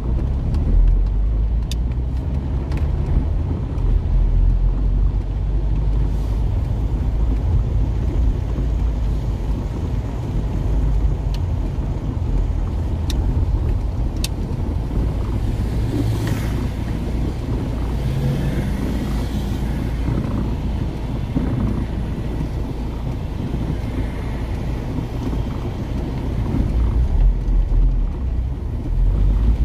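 Car moving through rain, heard from inside the cabin: a steady low rumble of engine and tyres on a wet road. A few sharp ticks come through, and a brief hiss rises about halfway through.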